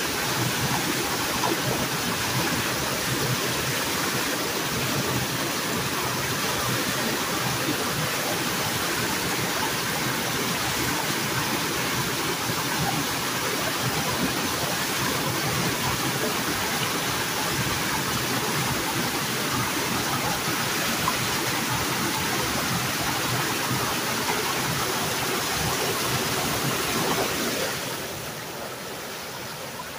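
Steady rush of water pouring out of a road culvert into a beaver pond, the flow freed by clearing a beaver blockage. It drops to a lower level near the end.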